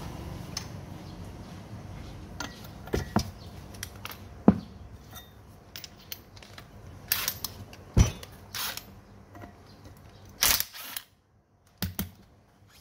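Irregular sharp clicks and knocks, about a dozen, the loudest about eight seconds in, with a moment of complete silence near the end.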